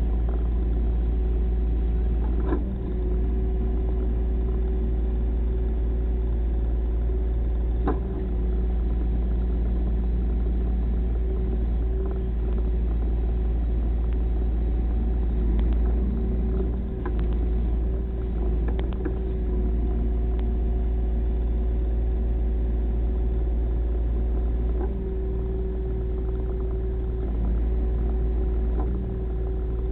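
An engine running steadily at an even speed, with a few sharp knocks scattered through it.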